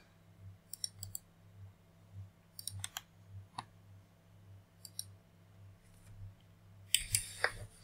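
Scattered computer keyboard keystrokes and mouse clicks in short, spaced clusters over a faint steady electrical hum, with a louder noisy burst near the end.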